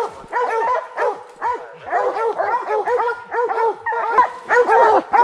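A pack of bear hounds barking treed, several dogs at once in rapid overlapping barks: the sign that the bear is up the tree.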